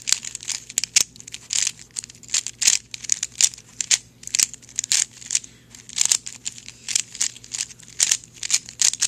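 A 3x3 Rubik's cube being turned face after face as it is scrambled: a quick run of short plastic clacking scrapes, about three or four turns a second.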